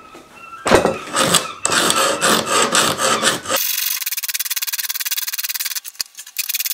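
Hand file rasping back and forth across the steel of a folding saw blade, smoothing the end where the hook was cut off. The strokes come about three a second, then turn quicker and thinner from about halfway.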